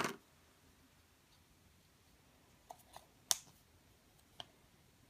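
A few light, sharp clicks of small plastic toys and packaging being handled and set down on a table, the loudest about three seconds in.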